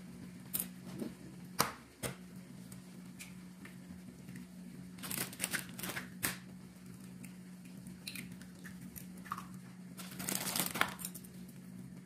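Eggs cracked and dropped into a pan of instant noodles: crackly shell-breaking sounds about five seconds in and again around ten seconds. Chopsticks tap lightly against the pan a few times in the first two seconds, over a steady low hum.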